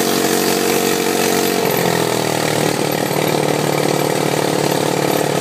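ATV engine running on the move, its pitch dropping about a second and a half in and then holding steady.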